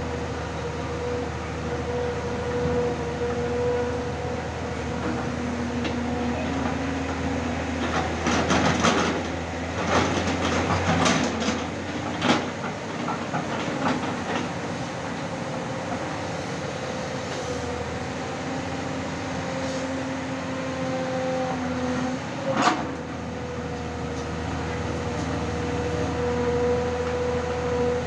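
Tata Hitachi 200 excavator running steadily under load, a drone with a steady tone over it, while turning over gravel sub-base. Clattering and scraping between about 8 and 14 seconds in, and one sharp knock about 23 seconds in.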